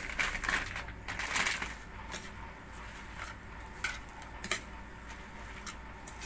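A spoon stirring a moist filling of flaked milkfish, grated carrot, egg and breadcrumbs in a stainless steel bowl. A soft squishing stir in the first couple of seconds gives way to scattered sharp clicks and scrapes of the spoon against the metal.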